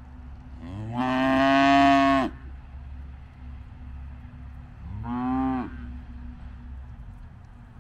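Hereford cattle mooing: one long, loud moo about a second in that rises in pitch and then holds, and a second, shorter moo about five seconds in.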